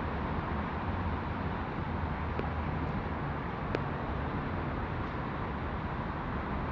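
Steady outdoor background noise, a low rumble and hiss, with a few faint clicks between about two and four seconds in.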